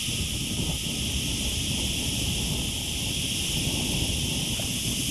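Wind buffeting the microphone in a steady, fluttering rumble, with a steady high hiss above it.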